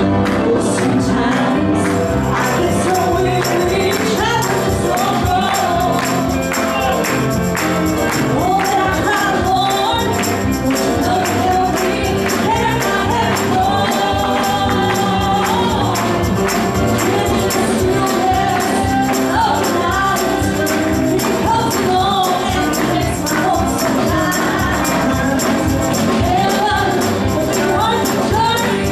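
Gospel music with voices singing over a band, a tambourine shaking a steady beat throughout.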